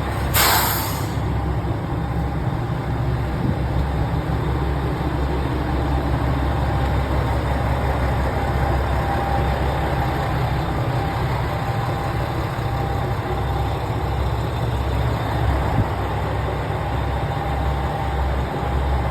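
Train's steady low engine rumble with a faint steady tone, and a short burst of hiss about half a second in.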